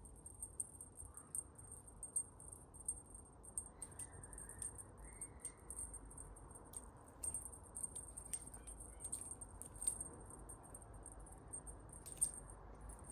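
High-pitched insect chirping in rapid, even pulses throughout, with a few sharp clicks scattered through it.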